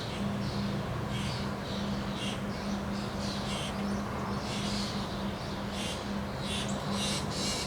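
Birds chirping over and over in short, quick calls, over a steady noisy background and a low pulsing hum.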